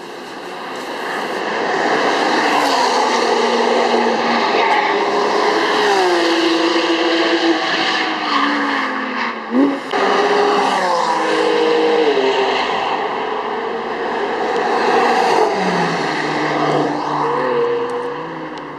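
Sports car engine under hard acceleration, its pitch climbing and then dropping at each gear change, with a brief lift and a quick rev about halfway through. It swells up over the first couple of seconds and fades near the end.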